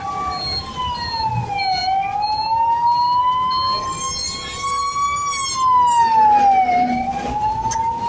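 Emergency-vehicle siren on a passing convoy escort wailing slowly: its pitch falls, rises over several seconds, then falls again near the end. A faint high beep repeats about twice a second, over street traffic.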